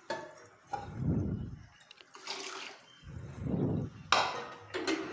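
Water being poured into a metal pot of soup, splashing into the liquid in a few separate pours.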